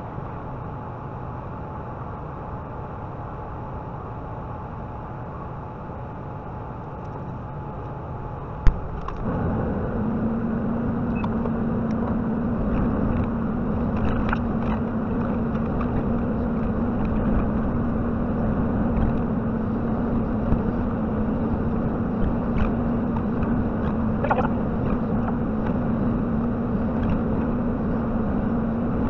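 JCB 55Z mini excavator's diesel engine running steadily. About nine seconds in there is a single sharp knock, then the engine note steps up louder and holds there, with scattered sharp cracks and knocks.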